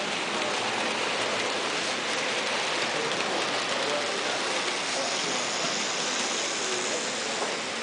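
Steady, even hiss of room noise with faint, indistinct voices in the background.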